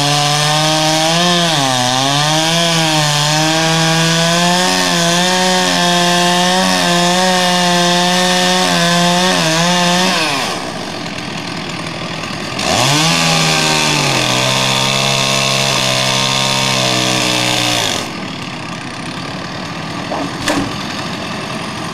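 Stihl two-stroke chainsaw cutting through a fallen tree trunk, the engine pitch dipping and recovering under load. The throttle is let off about ten seconds in, opened up again a couple of seconds later, and let off to idle about eighteen seconds in, with a light knock near the end.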